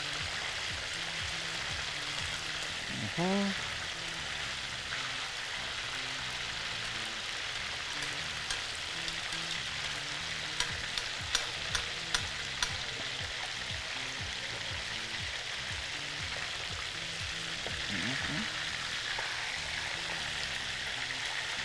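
Whole jurel fish frying in hot oil in a stainless steel pot: a steady sizzle throughout, with a few light clicks about halfway through.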